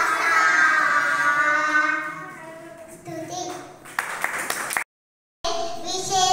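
Young children singing together, holding a long final note, then a brief burst of clapping. After an abrupt cut, a young girl's voice begins.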